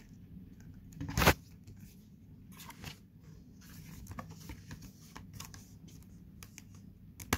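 Printed photo cards and cardboard box-set packaging being handled: one loud, sharp rustle about a second in, then scattered light rustles and taps of card, over a faint low hum.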